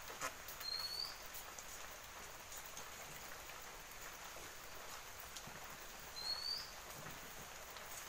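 Palmyra-fruit sweets deep-frying in hot oil in an aluminium wok: a steady sizzle with small crackles. A bird gives a short rising chirp twice, about half a second in and again about six seconds in.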